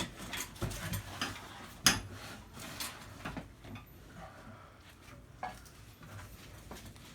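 Light metallic clinks and clatter of tools or hardware being handled, a string of separate knocks with the sharpest about two seconds in.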